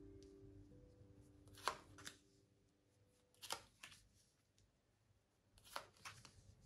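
Tarot cards being dealt one at a time onto a cloth-covered table: three pairs of quick card snaps, about two seconds apart.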